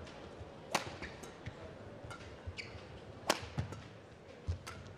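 Badminton rackets striking a shuttlecock in a rally: two loud, sharp hits about two and a half seconds apart, with softer clicks and knocks of footwork on the court between them.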